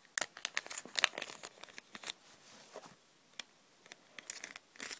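A small plastic bag crinkling and rustling as a Lego minifigure is slipped into it, in quick crackly bursts during the first two seconds and again near the end.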